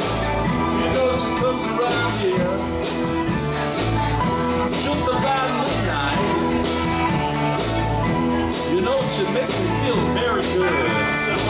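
Live rock band playing a song with electric guitars, bass guitar, drum kit and keyboard over a steady, repeating beat.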